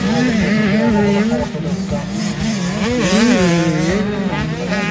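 85cc two-stroke motocross bike engine revving up and down through the jump and corner, with music playing over it.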